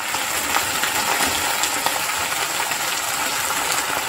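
Chopped jute leaves sizzling in hot mustard oil in a kadai as they are stirred with a spatula, a steady frying hiss with a few light clicks of the spatula on the pan.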